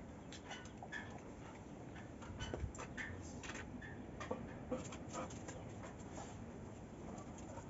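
A dog panting and sniffing while it reaches for a pot of food on a concrete sink, with scattered light clicks and taps throughout.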